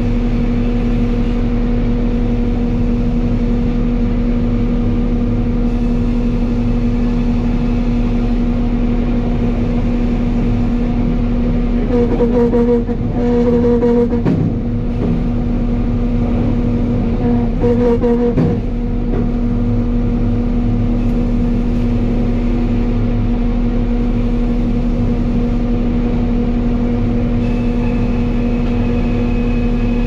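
Sawmill machinery running: a steady hum, heard from inside an operator's glass-walled cab, with two louder stretches about twelve and eighteen seconds in.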